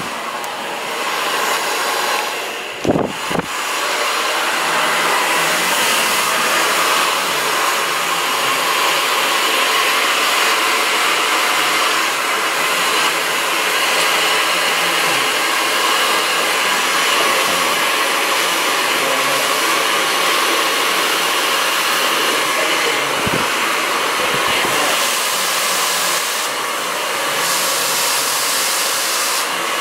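Handheld hair dryer blowing steadily, with a short dip and a couple of knocks about three seconds in.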